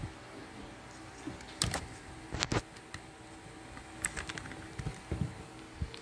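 Handling noise on the recording device: a few scattered taps and knocks, a pair about two and a half seconds in and a quick cluster around four seconds, as a hand reaches over it to stop the recording.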